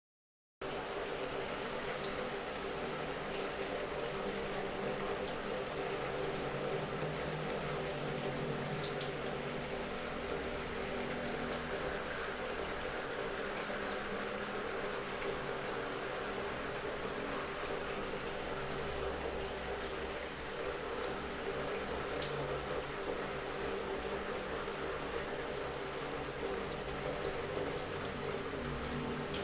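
Shower running: a steady spray of water falling on a tiled floor, with sharp little splashes of drops. It starts abruptly, under a second in, out of dead silence.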